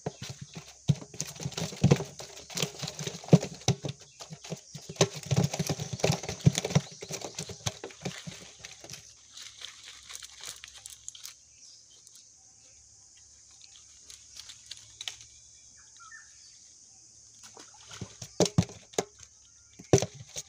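Hands pulling a fish out of a nylon fishing net on leaf-strewn mud: a dense run of rustling and crackling from the mesh and dry leaves for the first nine seconds or so, quieter for a while, then again near the end. A steady high chirring of insects underneath.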